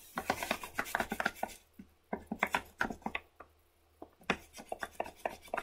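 A drawing tool working on sketchbook paper in quick, short scratchy strokes as a pencilled line is softened. There are three runs of strokes with brief pauses between them.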